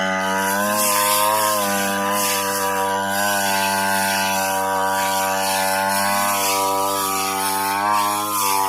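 Brush cutter engine running at high speed as its blade cuts grass, with a steady pitch that rises briefly a second in and again near the end.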